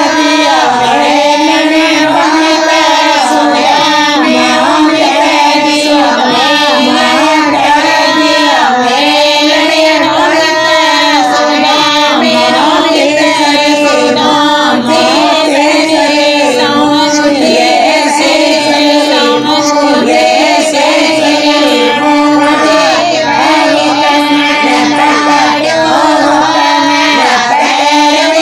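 Bagri devotional bhajan sung by a high voice with musical accompaniment, in a continuous, ornamented melody.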